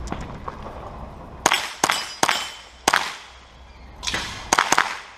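Sig Sauer 522 SWAT .22 LR semi-automatic rifle firing about seven quick shots in uneven strings, each a sharp crack trailing off in a short echo.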